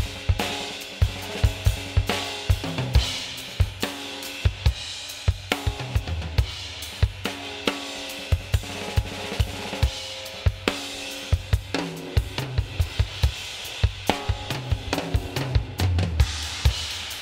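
Mixed drum kit recording playing a steady groove of kick, snare, hi-hat and cymbals. It runs through a drum-bus compressor on a punch preset, switched out and then back in for a before-and-after comparison.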